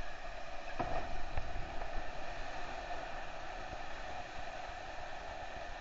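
Waterfall pouring into a rock pool, a steady rush heard from right at the water's surface. About a second in, a splash as a person jumping from the top of the falls hits the water.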